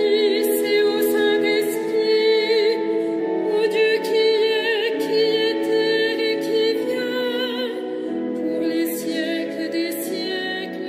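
Sung liturgical music for Vespers: a voice singing with vibrato over steady, held accompaniment notes, getting a little quieter near the end.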